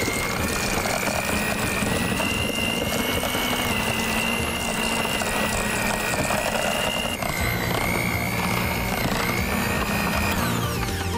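Electric hand mixer running steadily, its beaters churning crushed Oreo cookies and cream cheese into a thick dough in a stainless steel bowl. Its motor whine drops a little in pitch about seven seconds in.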